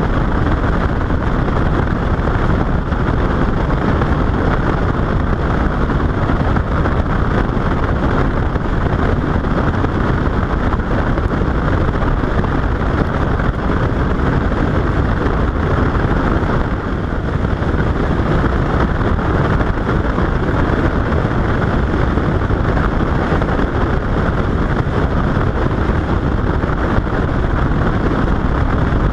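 Motorboat running steadily at speed, with heavy wind buffeting the microphone.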